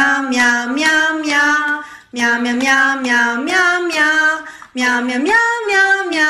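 A high voice singing a slow melody in three drawn-out phrases, each held on a low note and then stepping up, the step larger in each phrase.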